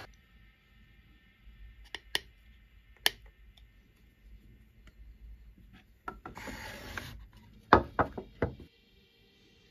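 A wooden marking gauge and wooden boards handled on a workbench: a few light clicks, a short scraping rub of wood on wood, then a quick run of four sharp wooden knocks.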